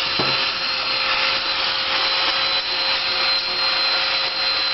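A power tool motor running steadily, a continuous hiss with a high whine and a lower hum held at a constant pitch.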